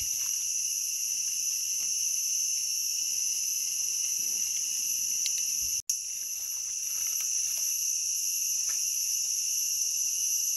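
Steady, high-pitched insect chorus, several shrill tones held without a break; it cuts out for an instant about six seconds in.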